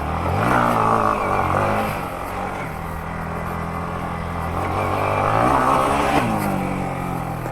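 Yamaha MT-15's 155 cc single-cylinder engine under throttle on a trail: it revs up about half a second in, settles to a steady run, then revs up again around five seconds in and drops back about a second later.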